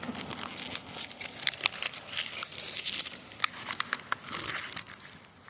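Packaging being handled and unwrapped by hand, crinkling with many irregular sharp crackles as the next firework is readied.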